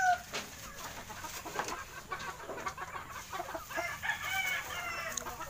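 Gamefowl roosters crowing: the tail of a loud crow dies away right at the start, then a fainter crow comes about four seconds in.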